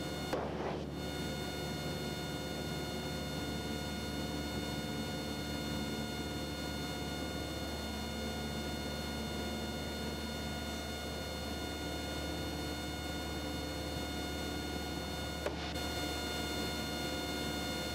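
Cessna 172's piston engine and propeller droning steadily in the cabin in cruise flight, an even hum with many steady tones and no change in pitch. A faint click about fifteen and a half seconds in.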